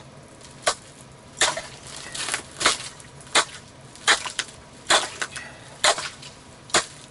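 Steel ice chisel striking down into a fishing hole and breaking through a thin skin of refrozen ice, about 2 cm thick. It makes about a dozen sharp, crunching strikes, roughly one or two a second.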